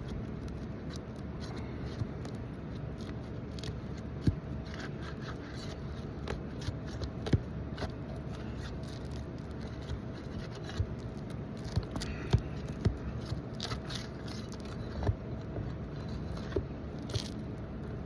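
Scattered scrapes and sharp clicks of asphalt shingles being worked loose by hand and with a tool, over a steady low hum.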